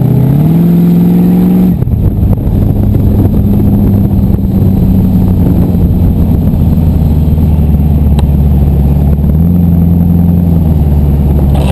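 Boss Hoss 502 motorcycle's 8.2-litre Chevrolet big-block V8, heard from the saddle. It revs up under acceleration for a couple of seconds, then drops in pitch suddenly as the throttle eases. It then runs steadily at a lower pitch, with a brief rise near the end.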